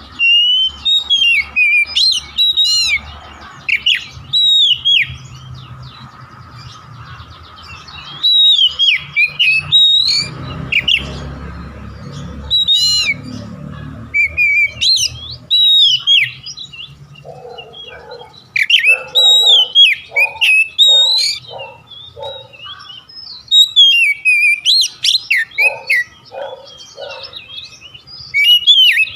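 Oriental magpie-robin (kacer) singing loud, rapid, varied whistled phrases in bursts with short pauses between them, with lower rough pulsed notes about halfway through and again near the end. A faint low hum runs underneath.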